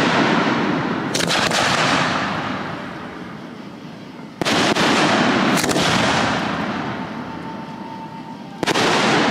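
Aerial firework shells bursting: sharp booms about a second in, twice more around the middle and once near the end, each followed by a long fading rumble.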